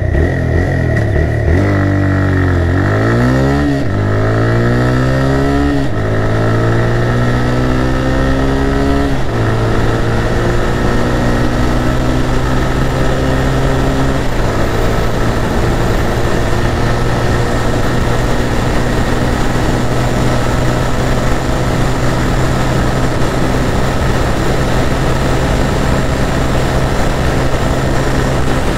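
TVS Raider 125's single-cylinder engine at full throttle, accelerating from a standstill to 100 km/h. Its pitch climbs and drops back at each upshift, several times in the first fourteen seconds, then holds a steady high note in top gear, with wind noise over the microphone rising with speed.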